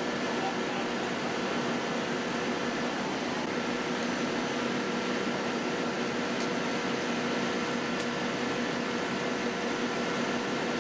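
Steady mechanical drone with a few constant humming tones, from idling heavy vehicles or machinery such as a fire engine's diesel.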